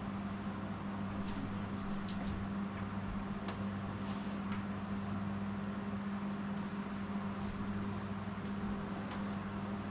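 A steady machine hum with a few faint clicks between about one and four seconds in.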